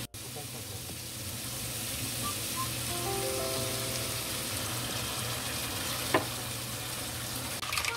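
Shrimp, sliced mushrooms and garlic sizzling in oil in a frying pan, stirred with chopsticks, a steady frying hiss. A single sharp tap about six seconds in.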